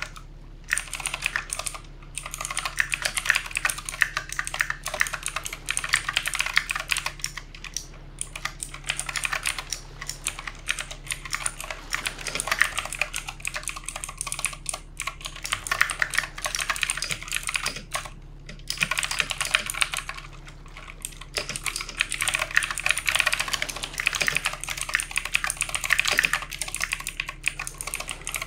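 Typing on a backlit mechanical keyboard: fast runs of key clicks, broken by brief pauses every few seconds.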